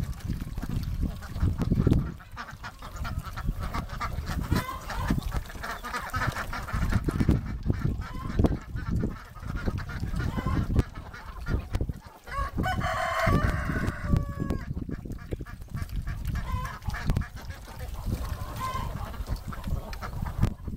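A flock of domestic ducks quacking and calling, with chickens among them. A longer call that falls in pitch comes about 13 seconds in.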